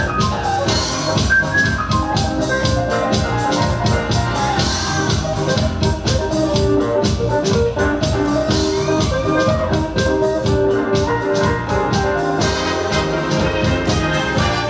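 Music with a steady beat played by the DJ over the venue's sound system, with sustained keyboard-like melody lines over the beat.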